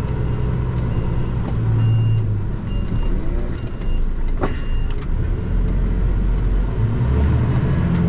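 Iveco HGV's diesel engine running, heard from inside the cab, with a reversing alarm giving about six short high beeps at an even pace that stop a little past the middle.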